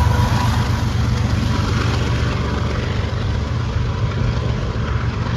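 BNSF diesel locomotives at the rear of a double-stack container freight train passing and pulling away. A steady low engine drone with wheel and rail noise slowly fades.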